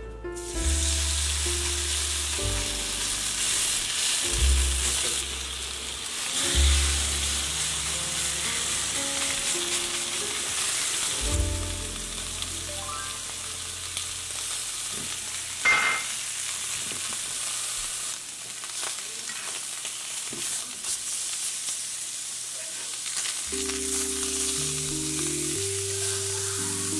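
Steaks searing in a hot skillet: a loud, steady sizzle that starts as the meat goes into the pan. A single sharp click comes about two-thirds of the way through.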